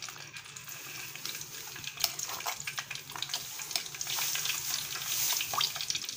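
Hot oil in a pan sizzling and crackling as a ground roasted gram and sugar powder is poured in. The sizzle grows louder about two-thirds of the way through.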